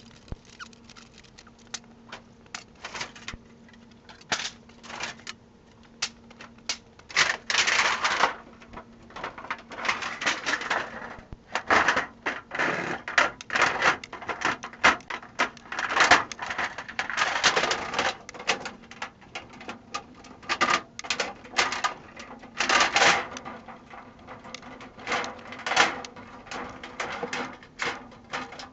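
Scrap sheet aluminum being handled and sorted: irregular metallic clanks, rattles and clatter, some in quick runs, others single knocks.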